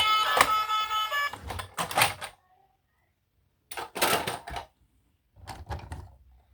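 Background music stops about a second in, followed by three short bursts of rapid plastic clicking and clattering, like toys or their packaging being handled, with near silence between them.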